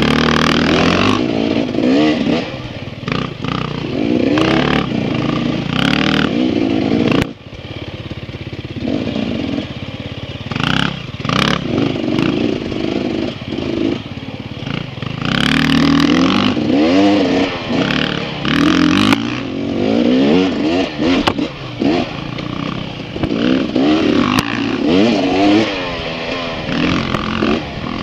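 Dirt bike engine running while being ridden along a trail, heard close up from the rider's own bike. Its pitch rises and falls with the throttle, and the level drops suddenly about seven seconds in.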